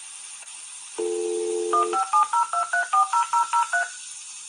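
Dial-up internet modem connecting over a phone line: line hiss, then about a second in a dial tone, followed by a quick run of about ten touch-tone dialing beeps.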